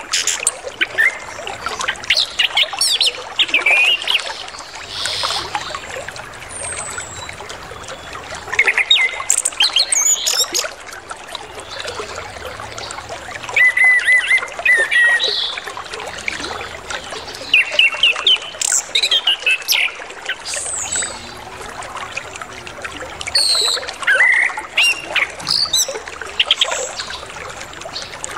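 Chestnut-capped thrush (anis kembang) singing a varied song of short chirps, trills and whistled sweeps, over a steady trickle of flowing water.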